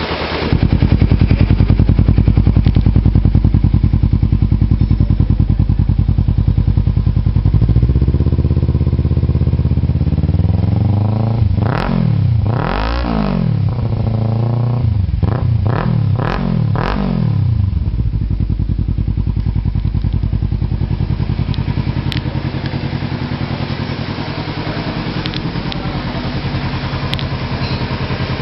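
Kawasaki Ninja 300's parallel-twin engine running through an aftermarket two-way exhaust tip. It idles, picks up speed about eight seconds in, is blipped in about five quick revs, then settles back to idle.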